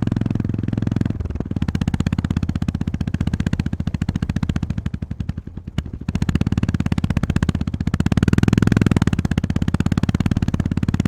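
Honda GB350S single-cylinder engine thumping under riding load. The throttle is rolled off about a second in, the firing pulses fade through the middle, then it pulls hard again from about six seconds, loudest near the end.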